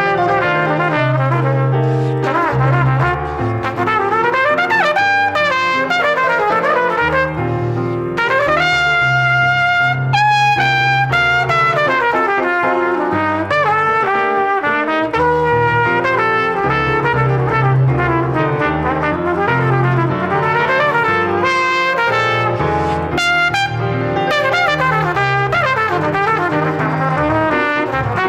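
Salsa music with a brass section of trumpets and trombones playing horn lines over a repeating bass line.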